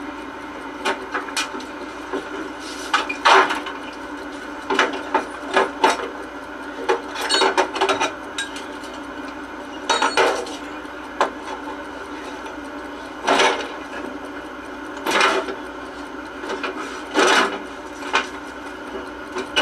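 Irregular knocks and clatter of hard objects bumping on wood, about fifteen in all and some lasting half a second, over a steady hum.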